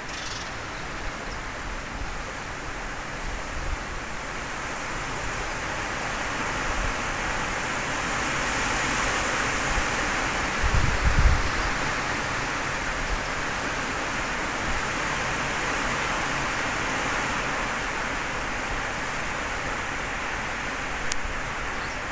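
Strong wind blowing as a steady rushing noise that swells into a stronger gust about halfway through, with a brief low rumble of the wind buffeting the microphone at the gust's peak.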